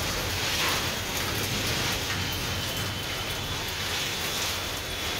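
Heavy rain pouring down, a steady dense hiss of rain falling on surfaces.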